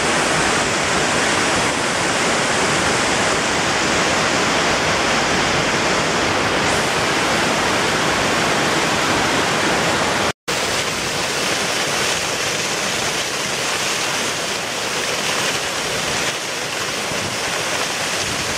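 Mountain stream cascading over rocks, a steady rush of water. The sound drops out for an instant about ten seconds in.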